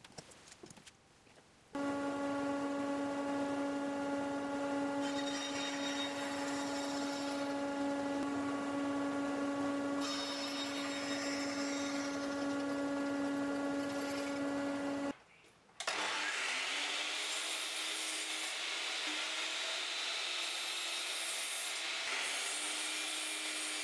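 A few faint clicks from the bar clamps, then a bandsaw motor starts and runs with a steady hum, cutting into plywood twice with a hissing rasp. It cuts off about 15 s in. Just after, a sliding miter saw runs with a high whine as it cuts a small piece of wood.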